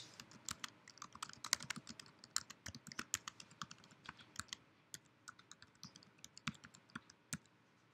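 Faint computer keyboard typing: a quick, uneven run of key clicks that stops shortly before the end.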